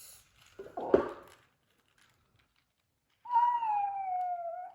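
A soft thump about a second in, then a single high, drawn-out cry lasting about a second and a half that slowly falls in pitch.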